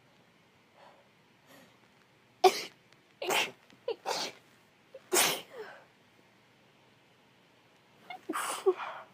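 A woman sneezing from a cold: faint sniffles, then a quick run of several sharp sneezes starting about two and a half seconds in, and another sneeze near the end.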